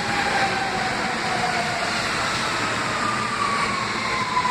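An R160B subway train running along the platform: a steady rumble of wheels and cars, with a motor whine that falls slowly in pitch as the train slows.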